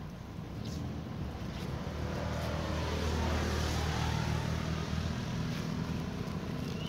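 A motor vehicle passing by: a low engine drone and tyre noise swell to a peak about three seconds in, then ease off a little.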